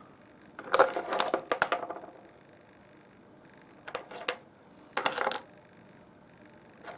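Rough opal nobbies clicking and clattering against one another and a hard surface as they are handled. There are three short clusters of rapid clicks: about a second in, around four seconds, and around five seconds.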